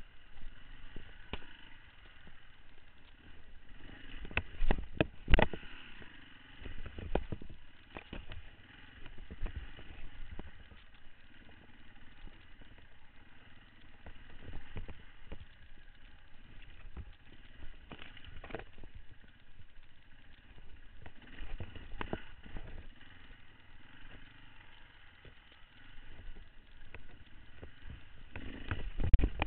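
Beta 525 RS dirt bike's four-stroke single-cylinder engine running at low speed on a rough trail, with sharp knocks and thuds as the bike jolts over bumps, the loudest about five seconds in and again at the very end.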